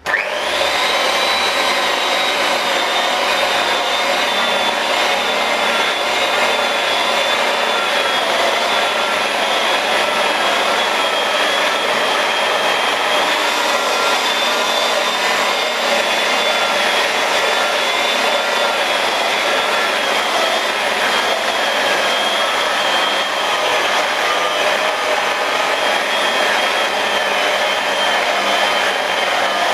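Electric rotary polisher switched on and running steadily with a high motor whine, its sponge buff pad cutting compound into a car's paintwork. It spins up in a fraction of a second right at the start.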